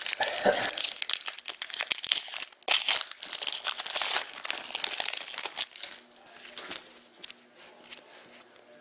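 Hockey card pack wrapper crinkling and tearing as the pack is opened by hand, dense and crackly for about the first six seconds. After that come quieter scattered rustles and ticks of the cards being handled.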